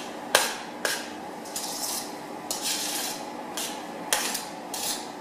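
A utensil knocking and scraping against a stainless steel mixing bowl as beaten egg whites are folded into a bread-dumpling mixture: a few sharp clinks between stretches of scraping.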